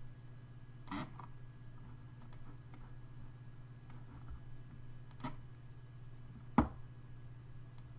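Scattered clicks of a computer mouse and keys as the 3D model is worked on, about eight in all, the sharpest about two-thirds of the way through, over a steady low hum.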